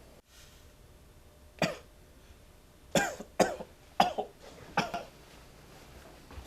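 A person coughing: five coughs, the first alone and the other four close together over about two seconds.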